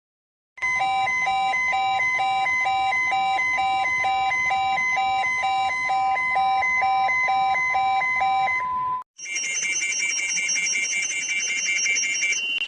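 Electronic emergency-alert alarm tone in an edited variation: a steady tone with a lower tone beeping about two and a half times a second over it, starting about half a second in. After a brief break about nine seconds in, it switches to a higher-pitched version of the same steady-plus-beeping pattern.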